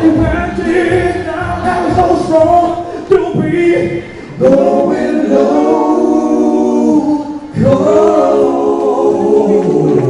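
A vocal harmony group sings in close harmony, with two long held chords in the second half.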